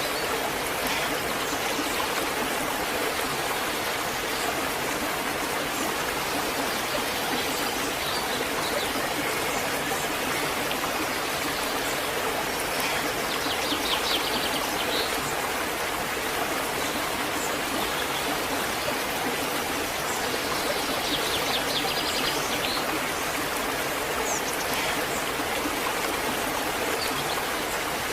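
Waterfall: a steady, even rush of falling water. Faint bird trills come through twice, about halfway through and again later.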